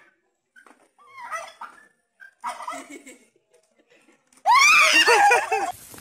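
Domestic tom turkey gobbling in a few short bursts. About four and a half seconds in comes a much louder wavering call lasting just over a second.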